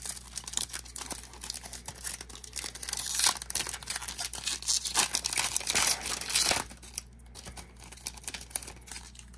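A Bowman Platinum trading card pack wrapper being torn open and crinkled: dense crackling and ripping for about six and a half seconds. It then drops to faint handling ticks.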